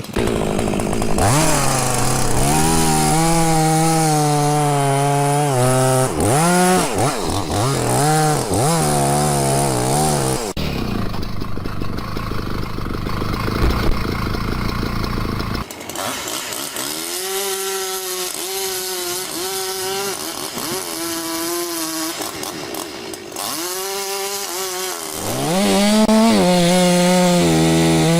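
Chainsaw running and cutting into wood, its engine pitch repeatedly rising to a high steady rev and then dropping as it is throttled and loaded.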